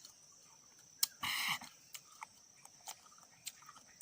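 Eating sounds of a person chewing tamarind: scattered small clicks and mouth smacks, with one louder, noisier sound about a second in.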